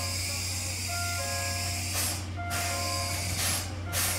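C11 steam locomotive on a turning turntable: a steady low hum with short bursts of steam hiss about halfway through and near the end, over a simple tune of single held notes.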